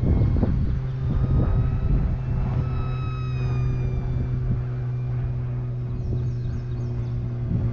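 Small electric RC plane motor and propeller whining in flight, its pitch gliding slowly as the plane moves. Wind buffets the microphone in the first couple of seconds.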